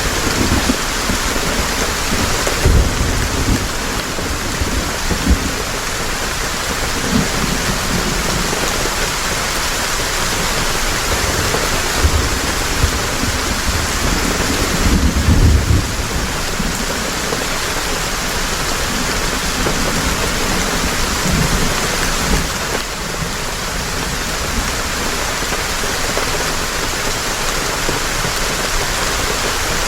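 Heavy rain falling in a steady dense hiss, with short low rumbles every few seconds, the strongest about halfway through.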